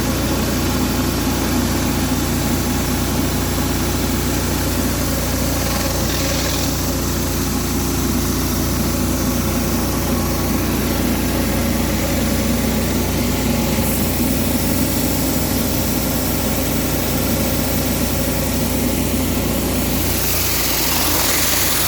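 Pressure washer's engine running steadily under an even hiss of water spray, the hiss growing brighter near the end.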